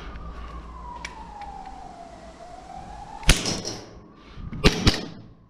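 Three shots from a gas blowback airsoft pistol: one a little past halfway, then two in quick succession near the end. Before them, a faint siren-like tone glides slowly down and back up.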